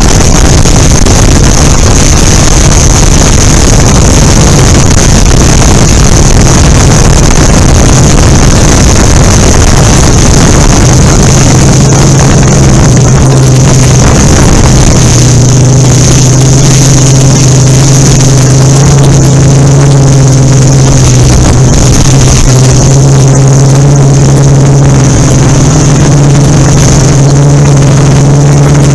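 Yuneec Typhoon Q500 4K quadcopter's propellers humming steadily as it hovers, with heavy wind buffeting on the microphone. About a third of the way in the buffeting eases and the steady rotor drone with its overtones comes through clearly.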